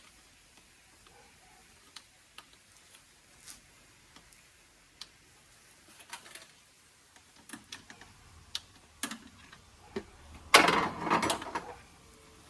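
Hand work on a car's interior trim: scattered light clicks and taps, then a louder scraping clatter lasting about a second near the end.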